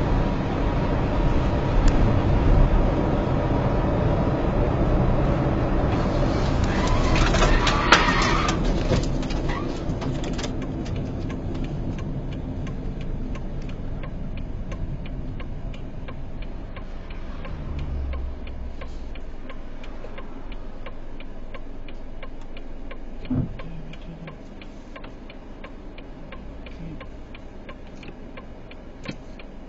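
Car driving along a road, heard from inside the cabin through a dash camera: steady engine and tyre noise that slowly grows quieter. A brief louder rush of noise comes about eight seconds in, and a short knock about 23 seconds in.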